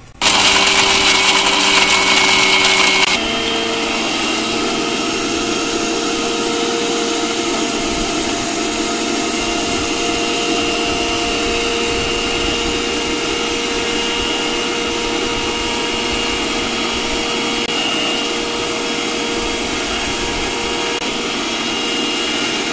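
Electric kitchen mixer grinder with a stainless steel jar grinding dry copra (dried coconut) pieces. It starts suddenly, louder and harsher for about the first three seconds, then settles into a slightly quieter, steady whine.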